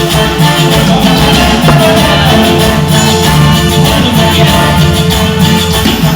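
Latin band music played loud and steady by a live band running through a sound check.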